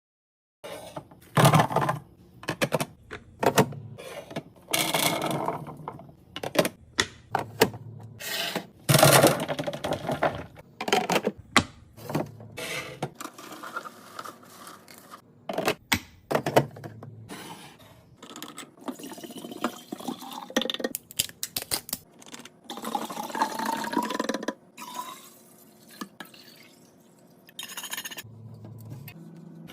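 Restocking noises: containers knocked, clattered and set down, with liquid poured into a container, its pitch rising as it fills, about two-thirds of the way through.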